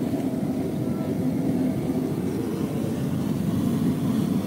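Steady low roar of a gas burner heating a converted beer-keg pot of water.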